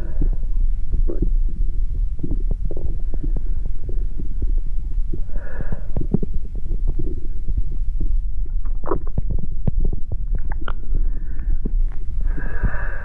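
Sound-art soundtrack: a dense, low rumbling throb crowded with irregular thuds and clicks, with a brief higher swell about five and a half seconds in and again near the end.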